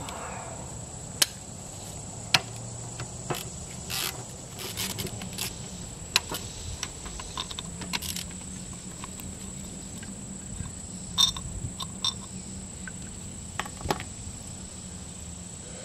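Scattered short metallic clicks and taps from a hand ratchet loosening the spring-loaded upper kingpin cap bolts on a Dana 60 front axle knuckle. Behind them runs a steady high-pitched insect drone.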